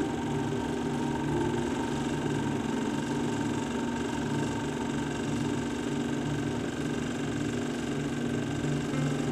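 A machine running steadily: an even hum with a fast rattling flutter underneath and a few steady high tones.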